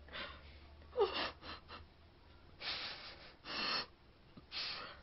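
A young woman gasping and breathing hard through the hand clapped over her mouth: a short falling vocal sound about a second in, then three heavy breaths.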